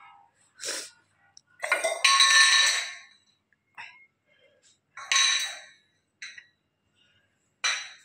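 Stainless steel tumbler clanking, ringing and scraping on a tiled floor as a black-capped lory knocks it over and pushes it along with its beak. The loudest clatter comes about two seconds in, another about five seconds in, with shorter clinks in between.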